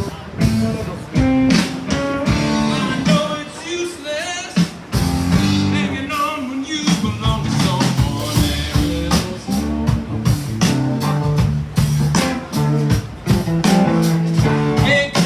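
Rock-style music with singing and guitar over a steady beat.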